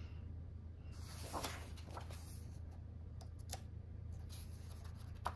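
A page of a hardcover colouring book being turned: a soft papery swish about a second in, then a few faint taps and rustles, over a steady low hum.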